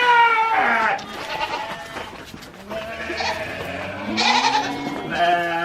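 Goats and sheep bleating, several calls in turn. The loudest comes right at the start and another long one near the end.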